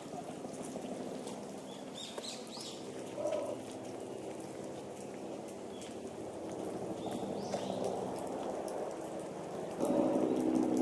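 Steady outdoor background noise with short bird chirps about two seconds in and again at about seven and a half seconds; the background grows louder near the end.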